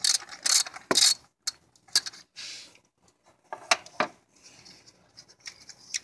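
Socket ratchet clicking in short runs and small metal clinks as the 10 mm hold-down bolt of an ignition coil is loosened and removed. The sounds come as scattered sharp clicks in several bursts.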